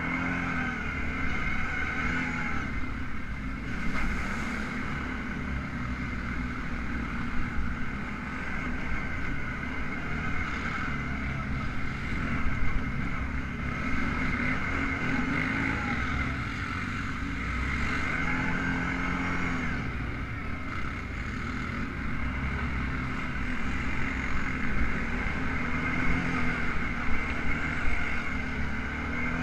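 ATV engine running under way on a rough dirt trail, revving up and falling back again and again with the throttle, with a heavy low rumble and occasional sharp knocks from the bumps.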